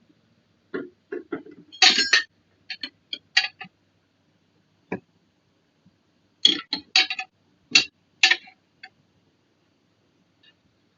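Small plastic and metal parts of a toy RC car being handled during a tyre change: short clicks and rattles in scattered clusters, with a pause between them in the middle.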